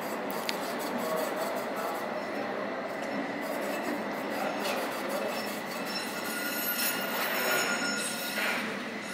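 Older Tatra tram rolling slowly round a tight curve of the terminal loop, its steel wheels grinding and squealing against the curved rails. The thin high squeal tones grow stronger about seven seconds in.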